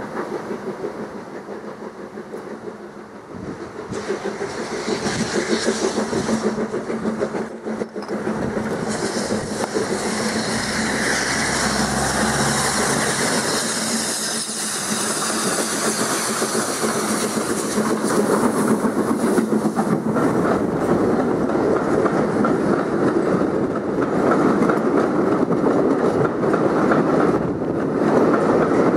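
Kitson & Company-built steam locomotive running on the line with its train, gradually growing louder.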